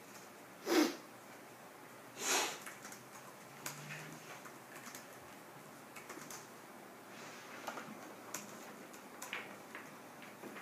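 Quiet classroom with scattered faint clicks and taps over room tone, and two short rushing noises about one and two seconds in, the first the loudest.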